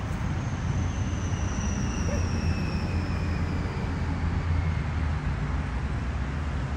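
Aircraft passing overhead, its engine whine falling slowly in pitch over several seconds, above a steady low rumble.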